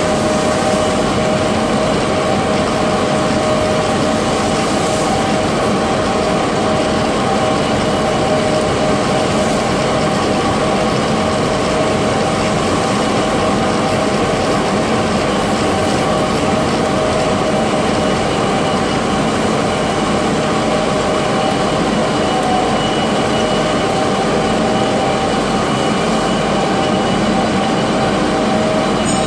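Large lathe running steadily, turning a long steel bar while a trepanning tool cuts a deep bore through it under coolant, close to breaking through. A continuous machine noise with a few held tones.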